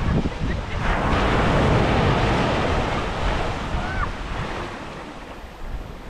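Ocean surf breaking and washing up a sandy beach, swelling about a second in and easing off toward the end, with wind buffeting the microphone.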